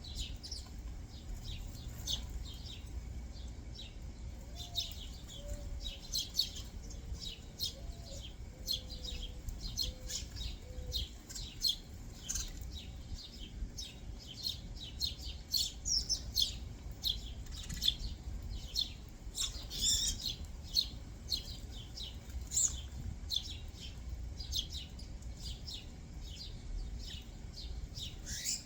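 Backyard songbirds chirping, a dense, continuous stream of short, high chirps from several birds at once, over a faint low outdoor rumble.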